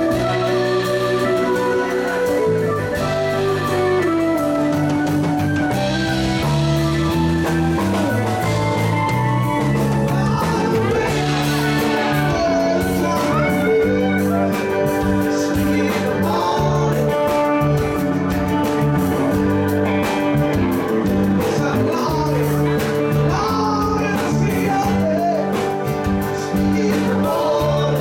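Live rock band playing, with a keyboard organ sound, electric bass, acoustic and electric guitars, and a man singing lead.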